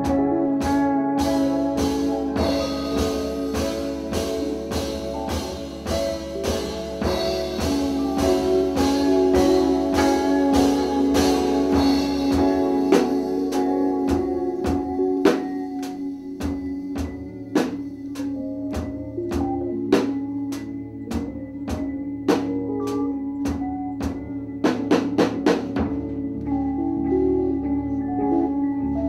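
Live improvised jazz trio playing: long held keyboard and bass tones under drum-kit hits and cymbals. Near the end the drummer plays a quick flurry of strikes, and then the cymbal wash stops while the held tones carry on.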